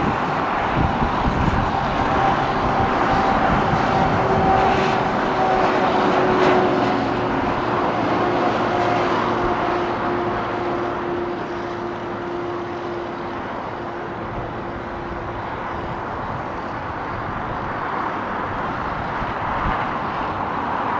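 Cessna 750 Citation X business jet in flight, its two rear-mounted Rolls-Royce AE 3007C turbofans giving a steady broad roar with a faint whine in it. The sound eases off a little over the second half as the jet moves away.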